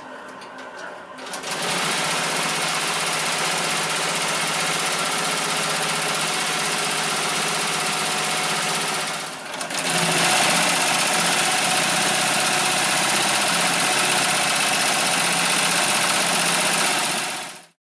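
Multi-needle embroidery machine stitching at speed, a dense, steady rapid clatter that starts about a second in. It dips briefly around the middle, comes back slightly louder, and cuts off abruptly near the end.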